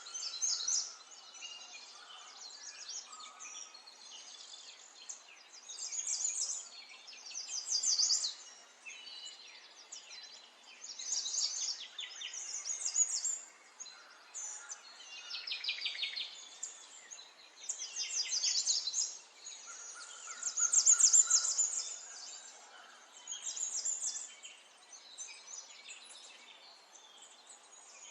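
Small songbirds chirping and trilling in short, high-pitched bursts every second or few, several calls overlapping, over a faint outdoor background.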